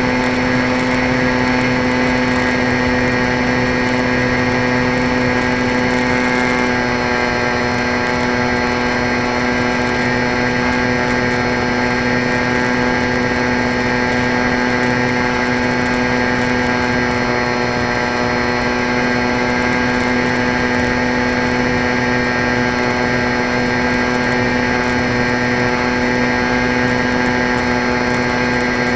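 Electric motor and propeller of a small RC plane, heard from an onboard camera, giving a loud, steady whine at cruise throttle with a slight change in tone about six and a half seconds in.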